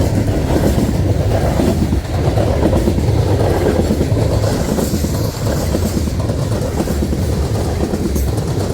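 Empty grain cars of a freight train rolling past at speed, a loud steady rumble of steel wheels on the rails with clattering over the joints.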